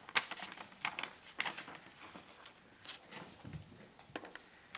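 Paper booklet handled close by and a page turned: a scatter of short, irregular crackles and taps.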